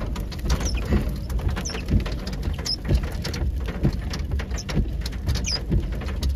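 Rain hitting a car's windshield and roof, heard inside the cabin as a dense, irregular stream of taps, with the windshield wipers sweeping across the wet glass.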